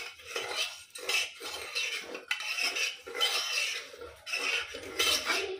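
A steel ladle stirring and scraping thick fried masala around the bottom of a pressure cooker pot, in irregular strokes about once or twice a second. The masala has been fried until the oil separated.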